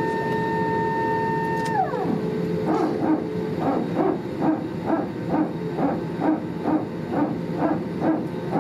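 Airbus A320neo hydraulic power transfer unit (PTU) barking, a rhythmic dog-like bark at about two barks a second that starts a little over two seconds in. Just before it, a steady whine glides down and drops away. The PTU is cycling as it transfers hydraulic pressure between the aircraft's green and yellow hydraulic systems.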